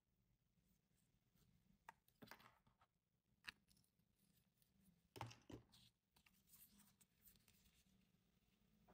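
Near silence, with a few faint, brief rustles and taps from ribbon and craft materials being handled on a table, the clearest a pair of taps about five seconds in.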